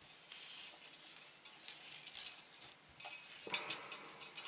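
8mm cine film and a plastic spool being handled while threading a projector: faint rustling and small clicks, with a sharper click about three and a half seconds in.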